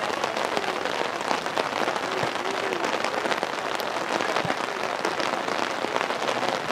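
Steady rain: a continuous hiss with many small, sharp drop hits ticking close to the microphone.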